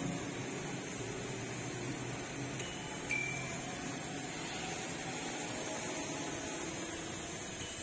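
Steady running hum inside a Suzuki Every van's cabin. About three seconds in come two sharp clicks, the second followed by a short, high electronic beep.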